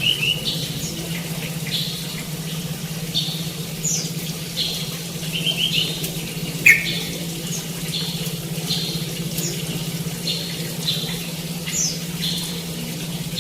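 Small songbirds calling: a short, high chirp repeats every second or so, with a quick trill near the start and a louder downward-swept call about halfway. A steady low hum runs underneath.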